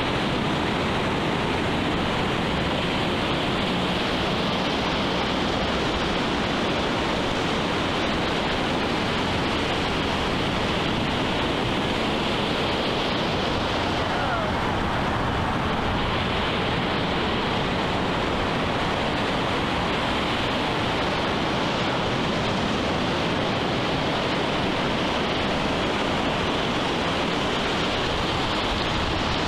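Ocean surf washing onto a sand and cobble beach: a steady, even rushing.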